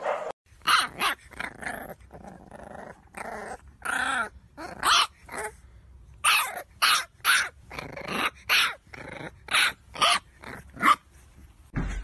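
Bulldog puppy barking: a string of short, sharp barks, with quieter growling between them.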